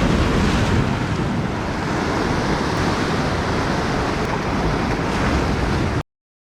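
Sea waves surging and breaking, with wind buffeting the microphone, as a steady rushing noise that cuts off suddenly about six seconds in.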